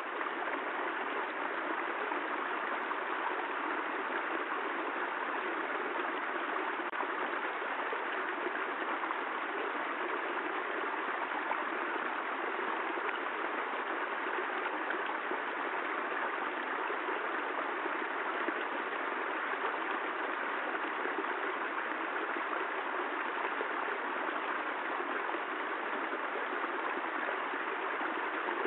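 Steady, even hiss of rushing water, with no separate drops or impacts standing out.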